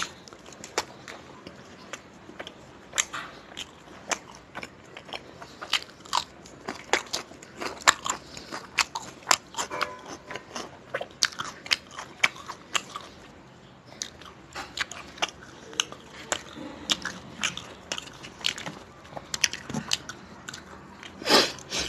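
Close-miked eating sounds of a man eating chicken curry and naan by hand: biting and chewing, with many short, irregular clicks and crunches. There is a brief lull about two-thirds of the way through.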